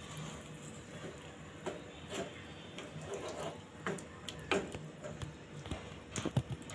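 A slotted spatula stirring a watery potato curry in a nonstick frying pan, with irregular soft scrapes and taps against the pan, a few louder knocks near the end.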